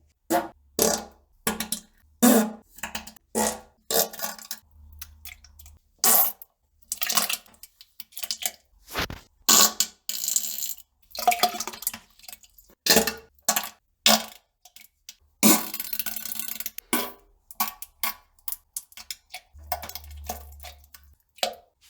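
A quick string of short fart and poop-plop sounds, one or two a second. There are longer spluttering bursts about ten seconds in and again around fifteen to seventeen seconds.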